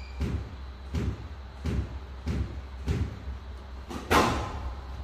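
Squash ball struck back and forth in a rally on a glass court: sharp hollow thwacks of racket and wall about every two-thirds of a second, then a louder smack with a ringing echo about four seconds in.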